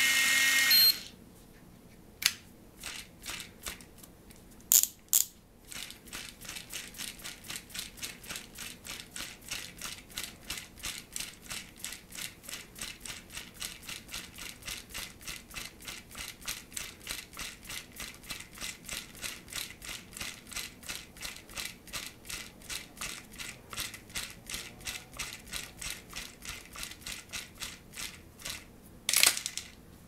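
Daiwa Tanacom GS-60H electric fishing reel: the motor's whir stops about a second in, then the reel's ratchet clicks steadily, about four clicks a second, as the reel is turned by hand, with one louder knock near the end.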